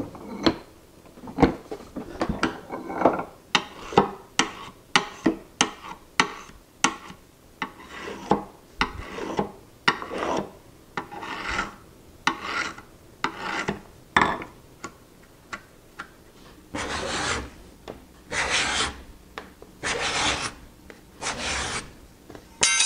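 A steel burnisher is drawn over and over along the edge of a card scraper clamped in a vise, in about twenty short, quick strokes that turn its burr out again. After a short pause come five longer strokes of the freshly burred card scraper shaving a hardwood board and raising curls.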